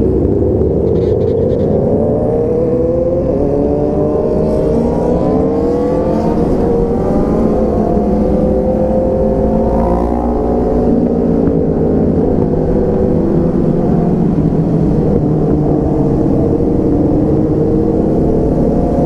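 Motorcycle engine under way while riding, its pitch climbing over the first several seconds, peaking about ten seconds in, then settling lower and creeping up again near the end.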